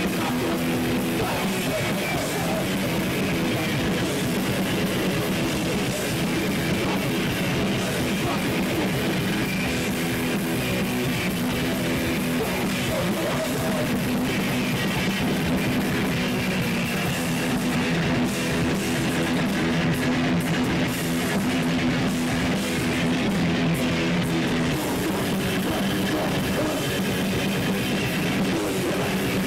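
Live heavy metal band playing at full volume: distorted electric guitars through Marshall amp stacks, with bass and drum kit, one continuous passage of a song.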